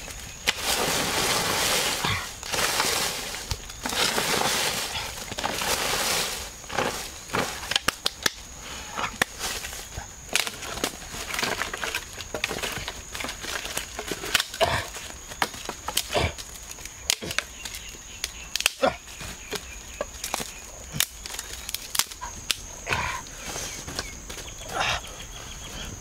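Dry branches and leaf litter being dragged and snapped by hand for firewood: long scraping rustles over the first several seconds, then scattered sharp cracks and snaps of breaking sticks.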